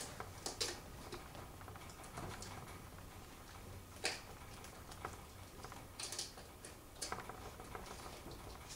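Faint, irregular clicks and ticks as a Prevost's squirrel clinging to a fleece jacket works its head in and around a clear plastic cup, the sharpest click about four seconds in.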